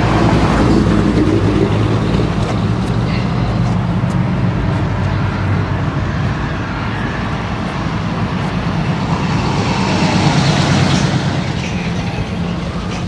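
Classic cars' engines running as they drive past one after another, starting with a yellow early-1950s Ford pickup close by. The engine sound eases off, then swells again as a second old car passes about ten seconds in.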